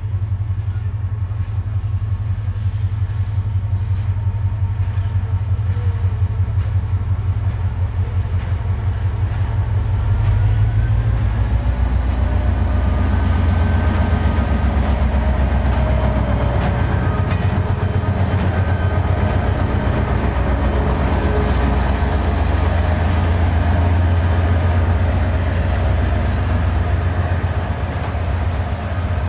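Two diesel-electric locomotives, a GMU-30 leading an RGE-24, passing at the head of a freight train. A steady low engine rumble grows louder about ten seconds in as the lead locomotive comes close. At the same time a high whine rises in pitch and then holds.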